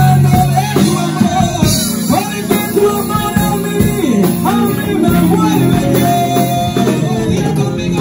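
Instrumental music with guitar over a bass line, no words sung.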